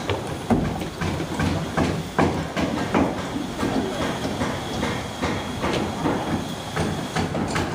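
Wood-frame construction work: irregular knocks and clatter of timber and tools over steady background noise.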